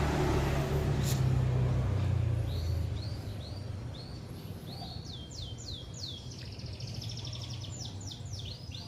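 A songbird calling repeatedly with short, high chirps that sweep downward, coming faster and breaking into quick rattling trills about six to seven seconds in. Before the calls begin there is a low hum and a single sharp click.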